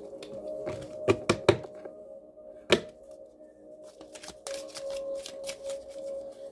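A deck of cards handled and shuffled by hand. There are a few sharp taps and knocks of the deck in the first three seconds, the loudest just before the middle, then a quick run of small clicking card riffles near the end. Soft background music holds a steady tone throughout.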